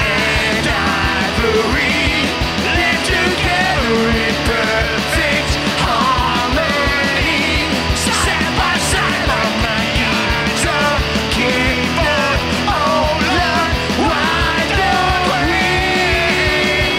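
Rock band music in a punk-rock style: a fast, steady drumbeat under a full band, with a melody line moving above.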